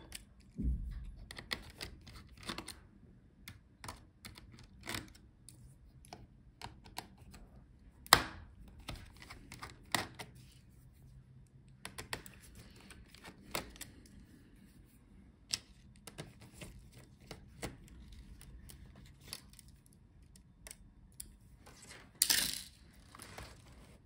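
Small screwdriver working laptop motherboard screws loose, with scattered light clicks and taps as the screws turn and are handled. There is one sharper click partway through and a short rustle near the end.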